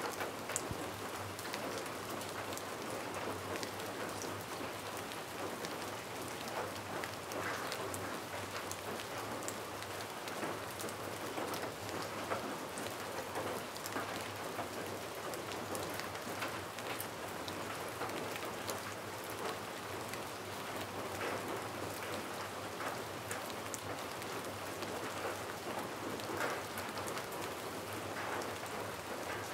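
Steady rain patter: an even hiss with many small drops ticking throughout.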